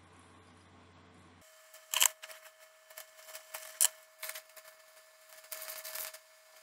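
A small plastic packet handled and opened by hand: crinkling with sharp clicks, the loudest about two seconds in and again near four seconds, and a stretch of rustling crackle near the end.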